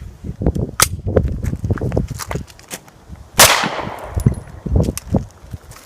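A single shot from a Taurus PT92 9mm pistol firing a Federal Hydra-Shok round, a sharp crack about three and a half seconds in with a short trailing echo. Low, uneven thumping and rumbling noise runs around it.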